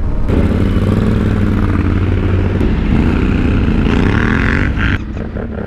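Yamaha Ténéré 700 parallel-twin engine with a Mivv Dakar exhaust, running at a steady pace under way. The sound drops suddenly about five seconds in to a quieter engine note.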